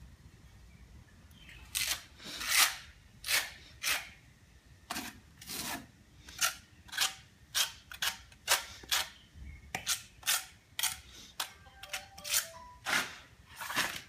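Steel trowel scraping and working cement mortar in short, rasping strokes, about two a second, starting about two seconds in.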